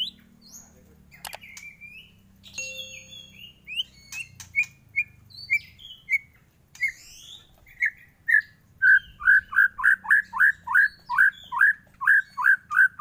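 White-rumped shama (murai batu) singing: a few varied whistled notes, then a long run of loud, repeated downward-slurred whistles that grows louder and quicker from about eight seconds in, reaching about three a second.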